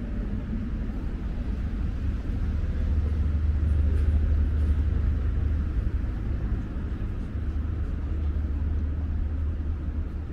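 Low, steady outdoor rumble, swelling a little about three to five seconds in.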